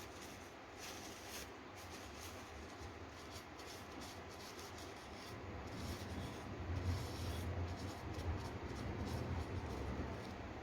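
Tissue rubbing and wiping over a graphics card's circuit board to clear dust from the memory chips: soft, irregular scratchy strokes, with a low rumble growing louder in the second half.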